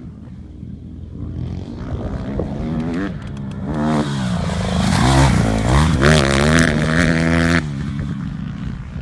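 Dirt bike engine approaching and passing close by, the revs rising and falling as the rider goes over a jump. It is loudest around the middle, then drops off suddenly near the end as the bike heads away.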